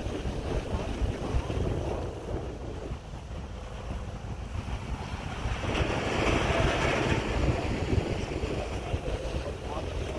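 Wind buffeting the microphone over a steady harbour rush of water and noise, with a louder rush of noise swelling for a second or so about six seconds in.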